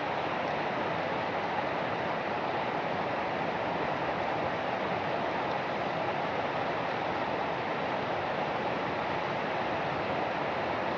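Rain falling steadily: an even, unbroken hiss with no separate drops standing out.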